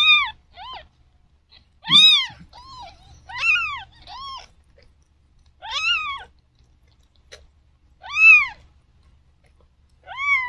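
Newborn kittens mewing: short, high-pitched cries that rise and fall in pitch, the loudest coming about every two seconds with fainter ones between.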